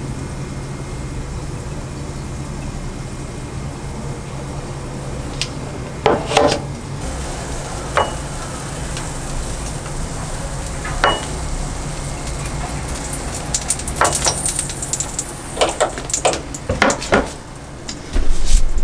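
Kitchen handling sounds: dishes and utensils clinking and tapping over a steady low hum. A few clinks come about 6, 8 and 11 seconds in, then they turn busier from about 14 seconds, and a loud low rumble closes the window.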